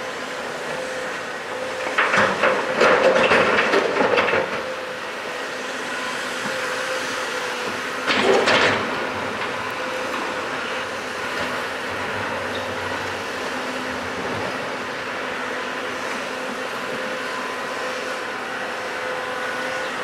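Diesel engines of a Cat hydraulic excavator and articulated dump truck running steadily, with a constant whine. Rock crashes and clatters into the truck's steel dump bed as the excavator unloads its bucket: a loud spill about two seconds in lasting a couple of seconds, and a shorter one around eight seconds in.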